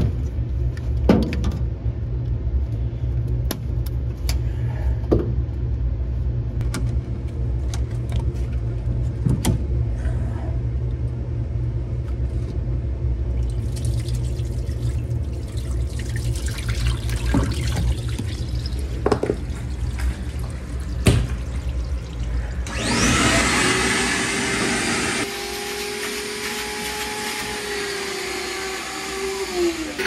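Metal tools clicking and knocking on a washer's drain-pump hose clamp over a steady low hum. About 23 seconds in a wet/dry shop vacuum switches on suddenly and runs with a steady whine, its sound changing about two seconds later as its hose works at the drain pump.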